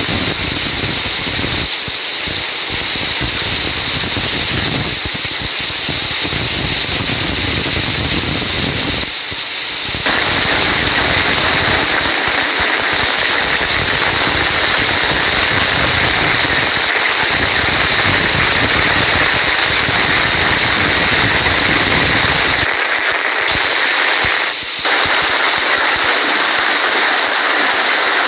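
Heavy rain pouring steadily, a dense, even hiss of drops. It grows louder and fuller about ten seconds in, and the deeper part briefly thins near the end.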